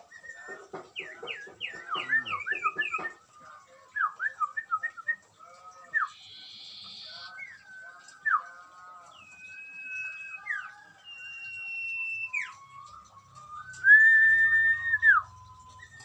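Caged songbirds singing: quick bursts of down-sweeping chirps for the first three seconds, then scattered chirps and a few long, steady whistled notes, the loudest held for over a second near the end.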